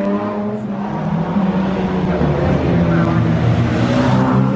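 Engine of an open-top classic sports car running as it approaches and drives past close by near the end, the noise swelling as it goes by.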